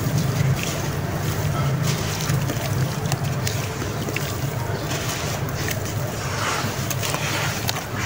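Sand and cement lumps crumbled by hand, the grains pouring through the fingers into a basin of foamy water: a continuous splashing patter with scattered small clicks, over a low wind rumble on the microphone.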